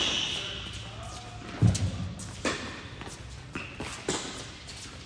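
Tennis rally on an indoor hard court: racket strikes and ball bounces as sharp knocks, about five in five seconds, the loudest a low thump a little under two seconds in. A brief high sneaker squeak at the start.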